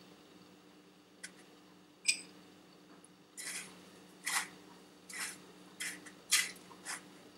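A light ringing clink of a metal fork against a glass bowl about two seconds in, then dry breadcrumbs rustling and crunching in about seven short bursts as a hand presses and rolls a batter-coated macaroni cheese ball through them on a steel plate.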